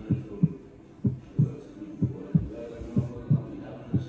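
Deep bass thumps in pairs, about one pair a second, with each thump dropping in pitch: a heartbeat-like suspense sound.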